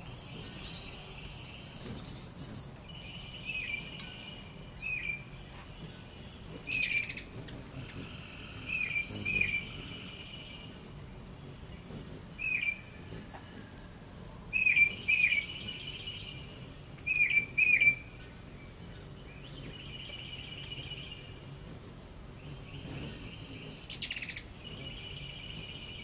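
Backyard songbirds calling: repeated short chirps and longer buzzy trills, with a few louder, sharper calls about seven seconds in and near the end.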